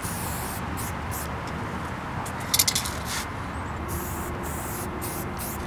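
Aerosol spray paint can hissing in short on-and-off spurts as outlines are painted, with one louder spurt about two and a half seconds in, over a steady low background rumble.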